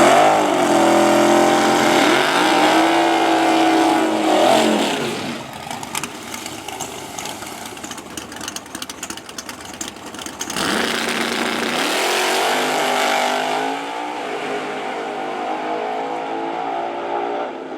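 Drag race car engine at full throttle, its pitch climbing and shifting for about five seconds before dropping away. About eleven seconds in, a second hard engine run-up starts and holds steady.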